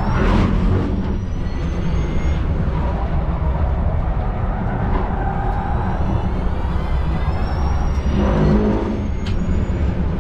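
Porsche Taycan Turbo GT's electric drive motors whining under hard acceleration, the whine rising in pitch twice (briefly, then for several seconds), over a heavy steady rumble of tyre and wind noise.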